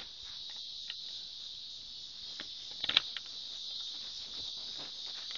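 A house key jiggling and clicking in a door lock that won't turn: a few scattered clicks, with a sharper cluster of rattling clicks about three seconds in, over a steady high hiss.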